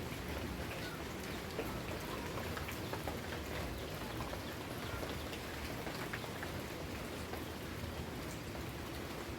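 Steady rain falling, with many individual drops ticking on a surface over an even hiss.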